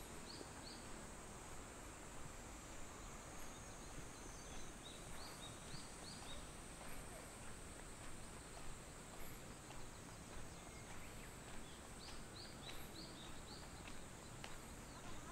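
Quiet outdoor ambience: a small bird chirping in three short runs of quick high notes, over a steady hiss, with soft regular footsteps on wet ground.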